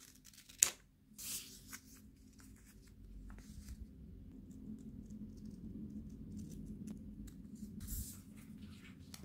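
Scissors cutting through self-adhesive reflective fabric tape: a sharp snap of the blades under a second in, then a short rasping cut, followed by faint rustling and small clicks as the cut strip is handled.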